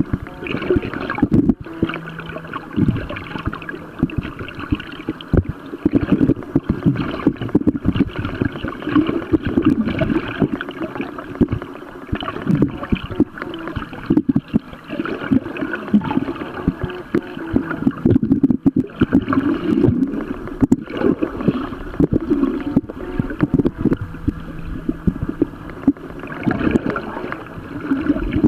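Muffled underwater sloshing and rumble picked up by a submerged camera, broken by many irregular knocks and bumps.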